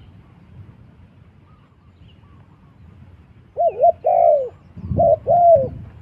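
Spotted dove cooing: from about three and a half seconds in, two phrases, each a short coo followed by a longer coo that rises and falls.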